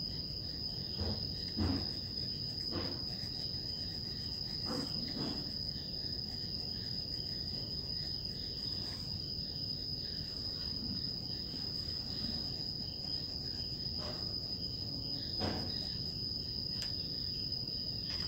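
Steady high-pitched insect trill, with a few faint taps and scrapes of an oil pastel being worked on paper.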